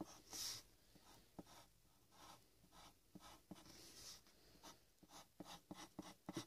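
Faint scratching of a pencil on paper in many short strokes as a sketch is drawn.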